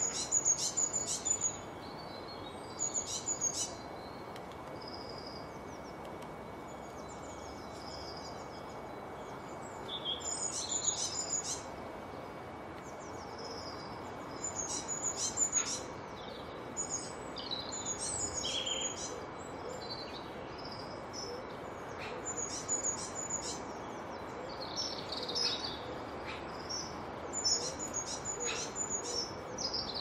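Songbirds singing in short, high-pitched phrases of chirps and trills, one burst every few seconds, over a steady background hiss.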